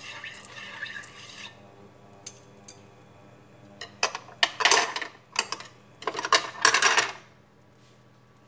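Chopsticks stirring and tapping in a non-stick frying pan of heating oil, then a run of loud scraping, rustling handling noises from about four to seven seconds in. The oil is not yet hot enough to sizzle.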